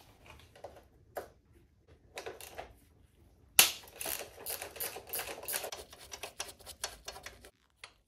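Socket ratchet clicking as a motorcycle frame-rail bolt is unscrewed. A few separate clicks come first, then a sharp metallic click about three and a half seconds in, then rapid ratcheting for about four seconds.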